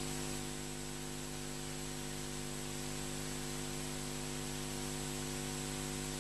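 Steady electrical mains hum with a stack of buzzing overtones and a faint hiss, unchanging throughout.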